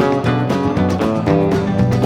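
Background music: strummed guitar in a country style with a steady beat.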